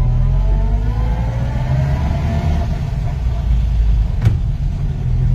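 Engine of a 1972 Fiat Premier Padmini heard from inside the cabin, accelerating in a low gear with a deep rumble and a rising whine over the first few seconds. A single sharp knock comes about four seconds in.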